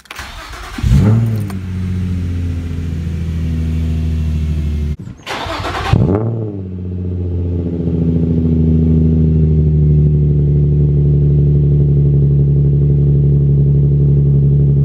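Car engine started with a quick rev that settles into idle. After a brief break it flares again about six seconds in, then idles steadily.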